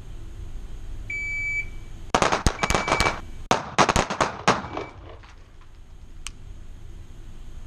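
A short electronic start beep, then a rapid string of shots from a CZ P07 Kadet .22 LR pistol over about two and a half seconds, ringing off the walls of an indoor range.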